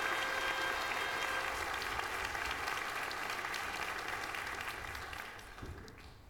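Large audience applauding, the clapping thinning and dying away over the last second or so.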